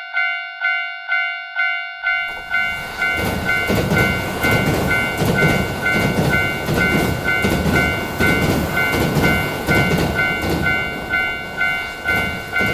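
Railroad crossing warning bell ringing "kan kan" at about two strokes a second. About two seconds in, a train passes: a loud rumble with the rhythmic clatter of wheels over rail joints, under the continuing bell.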